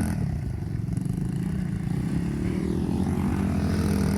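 Rebuilt Loncin 70cc four-stroke single-cylinder ATV engine running at a fairly steady speed.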